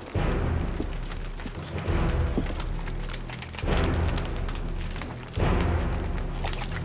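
Dramatic film score: a deep booming drum hit roughly every second and three-quarters, four in all, each dying away over a low held tone.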